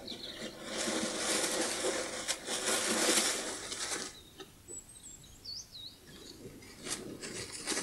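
Badger rustling and scraping through dry leaves and soil, loud for about three seconds and then quieter, with a few faint bird chirps about five seconds in.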